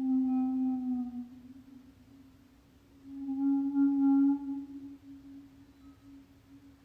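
A low, sustained musical tone with a few overtones swells twice, the first swell sliding slightly down in pitch as it fades. A faint steady hum of the same pitch remains underneath.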